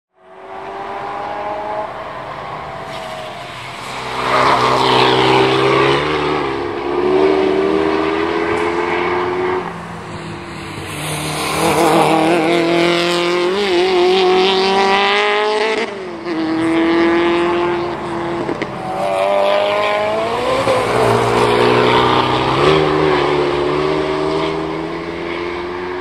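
Racing car engines at high revs going up through the gears, the pitch climbing and dropping back again and again with each gear change as cars accelerate along the circuit.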